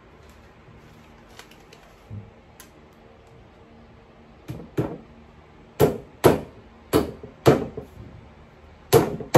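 Claw hammer driving small nails into the thin back panel of a flat-pack headboard shelf. A few faint taps come first; then from about halfway there is a run of sharp hammer blows, roughly two a second, loudest near the end.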